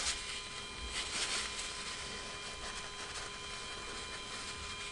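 Quiet steady electrical hum with a few thin high tones, and a few faint light clicks and rustles as the small hydraulic hoses of an RC crane's grab attachment are handled.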